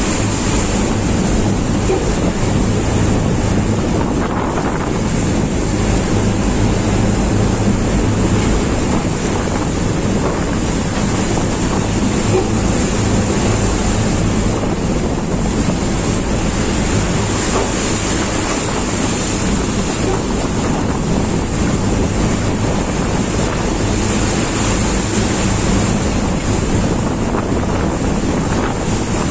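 Storm wind and heavy breaking seas washing over a vessel's deck, loud and unbroken, with wind buffeting the microphone. A steady low hum runs underneath.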